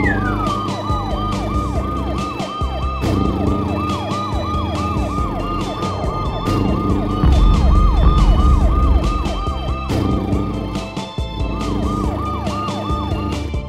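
Siren-like electronic sound effect: a short falling tone repeated about four times a second, over background music. It opens with a longer downward swoop and pauses briefly about eleven seconds in.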